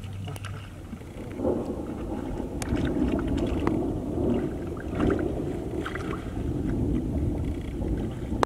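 Shallow muddy water splashing and sloshing, with scattered sharp clicks, as a man wades barefoot and scoops with a plastic basket. The sloshing grows about a second and a half in and keeps going.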